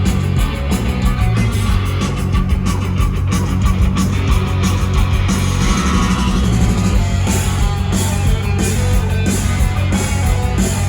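Live rock band playing loud, fast psychedelic rock: guitars, bass and drums, with cymbals struck in a rapid steady pulse that eases off about halfway through and comes back harder near the end.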